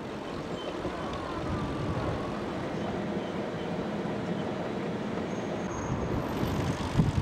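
Steady road rumble and hiss from a moving vehicle, with one short knock near the end.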